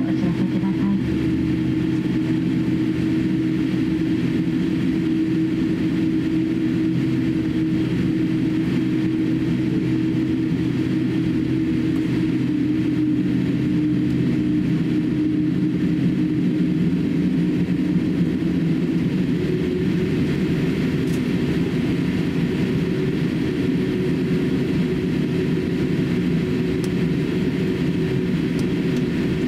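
Cabin noise of a Boeing 787-8 taxiing: the jet engines running at low taxi power with a steady hum. The hum shifts slightly in pitch about two-thirds of the way through.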